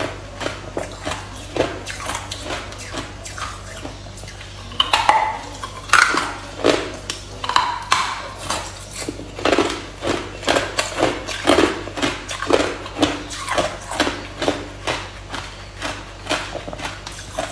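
Hard ice being bitten and chewed close to the microphone: a steady run of sharp crunches and cracks, about two to three a second, loudest a few seconds in.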